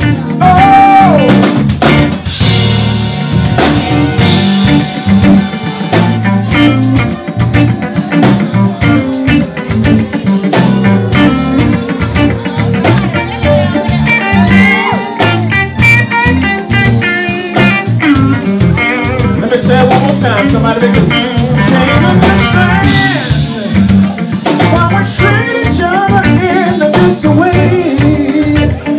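Live band playing through a PA: a lead singer over electric guitars and a drum kit keeping a steady beat.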